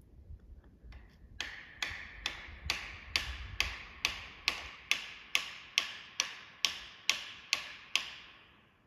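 Felling wedges being hammered into the cut of an oak tree: about sixteen sharp, evenly paced blows, a little over two a second, starting about a second and a half in, each with a short ring.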